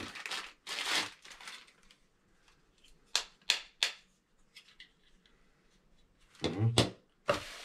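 Plastic packaging crinkling as small ring-light parts are unwrapped, then three sharp plastic clicks about three seconds in as the small tripod holder is handled, and faint ticks after.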